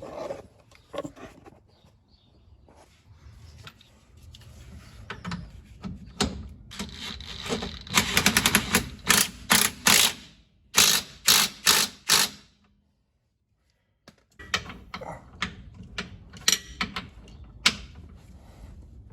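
Hand ratchet clicking as a suspension bolt is run in and tightened: quick runs of clicks about halfway through, then a few slower, louder clicks, and more scattered clicks near the end.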